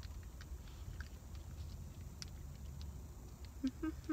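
Faint scattered clicks and crinkles of a plastic sauce packet being torn open with the teeth and handled, over a low steady rumble.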